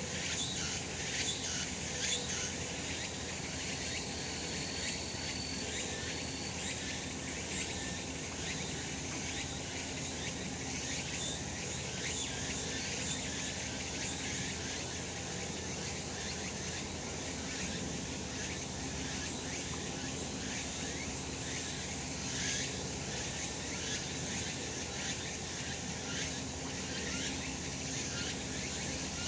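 Cicadas calling in a dense, continuous chorus: a steady, high-pitched, pulsing buzz.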